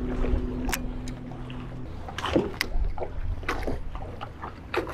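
Electric trolling motor humming steadily, then cut off about two seconds in, leaving the low wash of choppy water around the boat and a few sharp clicks and knocks.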